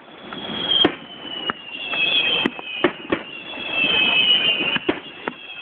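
Aerial firework shells bursting overhead in a string of sharp bangs at uneven intervals, with a thin high whistle running through most of it.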